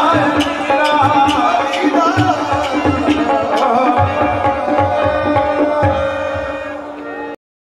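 Qawwali music: tabla drumming in a steady rhythm under steady held notes and singing. It cuts off suddenly near the end.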